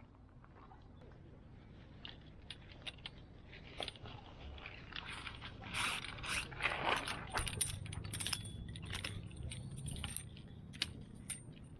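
Small metal clinks, knocks and scrapes from things being handled, growing busier a few seconds in and thickest in the middle.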